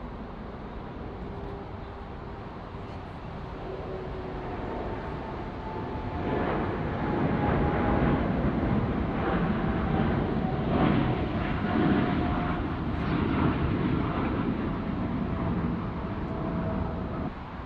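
Jet airliner passing close by: its engine noise swells to a loud rumble with a faint whine that slowly falls in pitch, then cuts off abruptly near the end.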